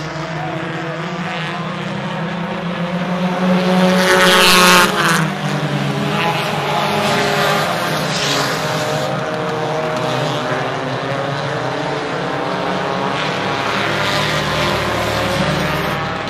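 U-car division stock cars racing on a dirt oval, several engines running hard together. About four seconds in, one car passes close and loud, its engine pitch dropping as it goes by.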